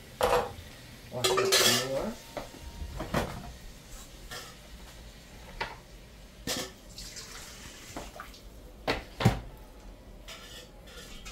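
Stainless steel bowl, pot lid and metal spoon clanking together in a string of separate knocks. There is a longer rattle about a second and a half in, and the loudest knock comes near the end.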